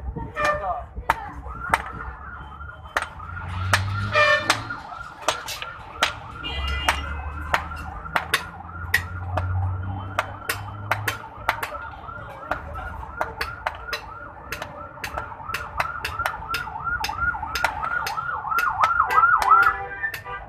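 Hand-cranked forge blower whining, its pitch rising and falling about twice a second with each turn of the crank, speeding up and getting louder near the end. Sharp metallic clinks sound irregularly throughout.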